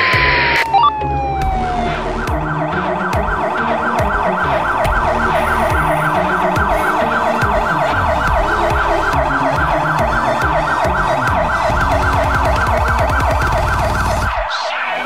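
Fire engine's electronic siren: a single falling wail over the first couple of seconds, then a fast yelp sweeping up and down several times a second, cutting off suddenly just before the end. A diesel truck engine runs underneath, and a short burst of hiss comes at the very start.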